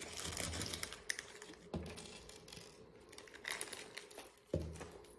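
Faint rustling of a small plastic zip bag and light clicks of small rhinestones being handled on a tabletop, with a few separate ticks.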